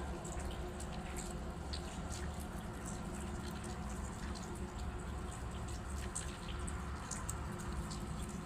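Water of a swollen creek flowing steadily, with scattered small splashes and drips.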